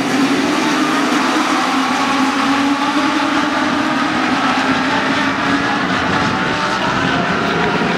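A pack of Legends race cars running at speed, their Yamaha motorcycle engines at high revs. Several engine notes overlap in a steady, loud blend whose pitch drifts slightly as the cars pass.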